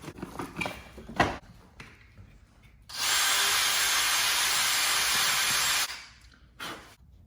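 A power drill running steadily for about three seconds, starting and stopping abruptly, after a few light knocks, the sharpest about a second in.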